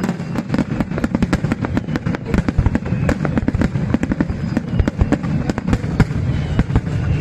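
Fireworks display at full barrage: a rapid, continuous stream of shell bursts and crackling bangs, several each second, overlapping one another.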